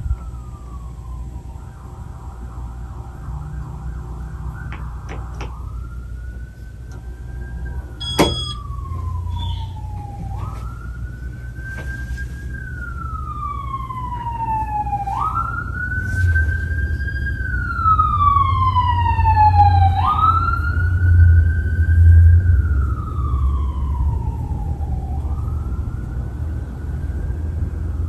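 An emergency vehicle siren wails, jumping up in pitch and sliding slowly back down about every five seconds, with a second, higher wail overlapping in the middle. Underneath is the steady low hum of a Casablanca Nouvelle ceiling fan running, and there is one sharp click about a third of the way in.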